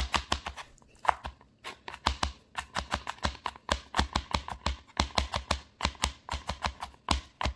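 Chef's knife rapidly chopping garlic on a plastic cutting board: a quick, uneven run of sharp knocks of the blade on the board, several a second.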